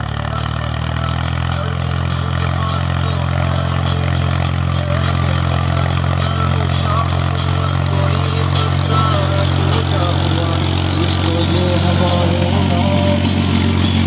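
Force Orchard DLX tractor's diesel engine running steadily under load while pulling a two-bottom mouldboard plough through soil.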